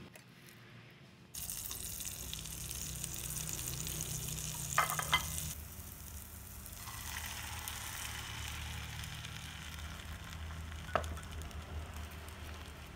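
Bread and beaten egg frying in a non-stick pan, a steady sizzle. A few light clicks come about five seconds in and one near eleven seconds.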